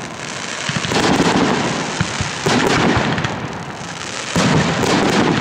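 Fireworks display: aerial shells bursting one after another with deep booms that roll and echo, and some sharp cracks in between. Fresh blasts come about a second in, near the middle and again after four seconds.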